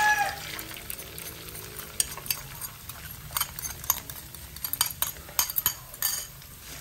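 Beaten egg frying in hot oil and minced garlic in a steel wok, with a light sizzle, while a metal spatula scrapes and taps against the wok in scattered sharp clicks.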